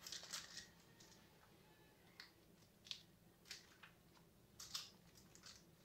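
Faint, crisp rustles and crackles of a tortilla wrap and its lettuce leaves being rolled up by hand, coming in short scattered bursts.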